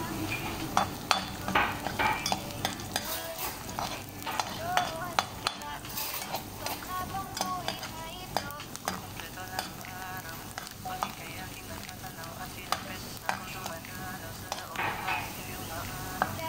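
Chopped onions sizzling in hot oil in a metal frying pan, stirred with a metal spoon that scrapes and clicks against the pan again and again.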